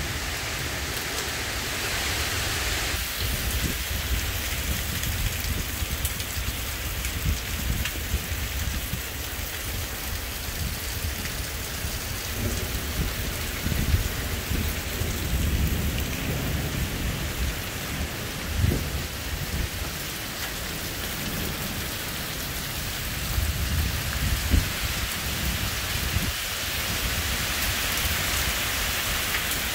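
Heavy downpour of rain, a steady hiss, with low rumbles of thunder rolling in around the middle and again later on, a few of them peaking sharply.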